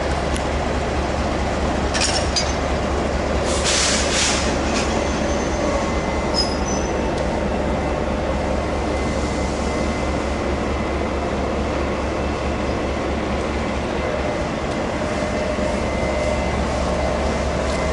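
Freight train rolling past, its steel wheels rumbling and clattering steadily on the rails, with brief high squeals about two and four seconds in.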